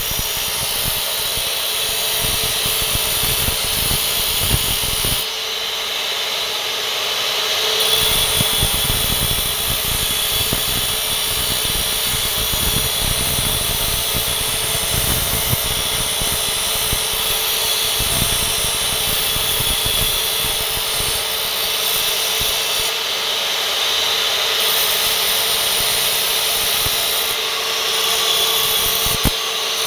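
Makita abrasive cut-off saw running with a steady motor whine, its wheel grinding a hand-held piece of rusty metal. The grinding drops away briefly about five seconds in.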